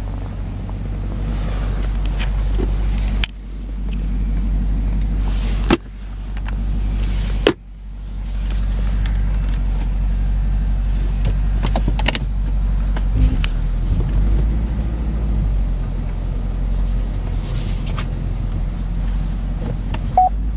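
Supercharged 6.2-litre V8 of a Cadillac CTS-V idling steadily, heard from inside the cabin. There are three sharp clicks in the first half, each with a brief dip in the sound.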